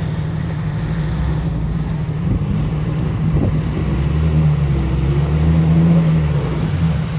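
Off-road vehicle's engine running as it drives along the trail, a steady low drone that grows louder for a couple of seconds past the middle.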